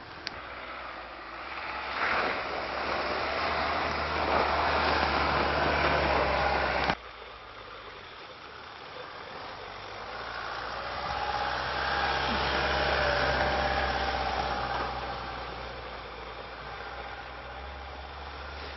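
Land Rover Freelander 2 SUV driving through snow, engine running under power with tyres churning snow. It grows louder, cuts off abruptly about seven seconds in, then swells again on a second pass and fades away.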